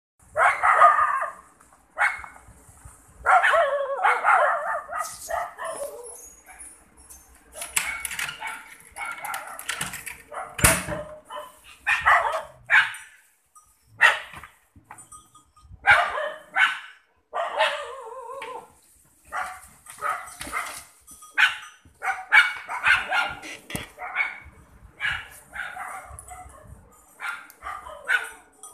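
Dog barking in repeated loud bursts, some short and some drawn out, with brief gaps between them.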